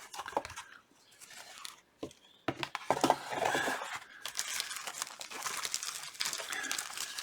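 Thin plastic wrapping being torn and crinkled by hand as a plastic model kit box is opened, with a few light handling clicks first and then a steady crackling rustle.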